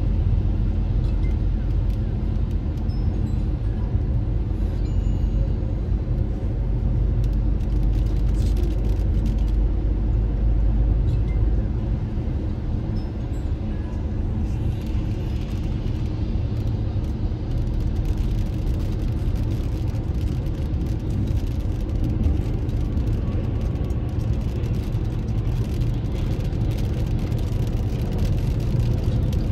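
Car interior noise while driving: a steady low rumble of engine and road that eases somewhat about twelve seconds in.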